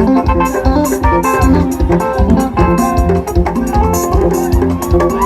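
Instrumental band music with a steady drum beat, bass and keyboard.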